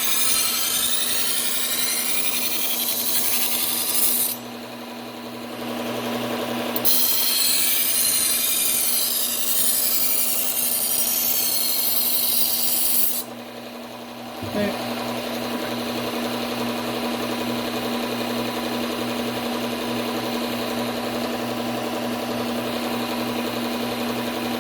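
Bucktool slow-speed belt sander with a Cubitron P120 belt grinding a kitchen knife's edge: two passes of gritty hiss, about four and six seconds long, separated by a short lull, over the machine's steady hum. For the last ten seconds the belt runs on alone with no blade on it.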